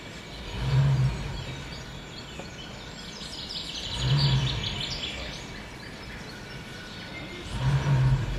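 Recorded birdsong on a dance backing track, with a deep swelling tone that rises and fades three times, about every three and a half seconds.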